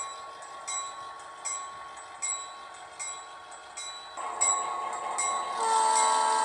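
Model diesel locomotive's sound system: the bell ringing in single strikes about every three-quarters of a second, the engine sound swelling about four seconds in, then a multi-chime horn blowing a long, steady blast near the end.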